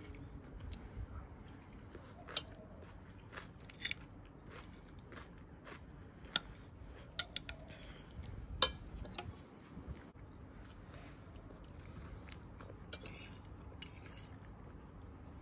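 Knife and fork clinking and scraping on a ceramic plate while a meal is cut and eaten, with scattered sharp clinks, the loudest a little past halfway.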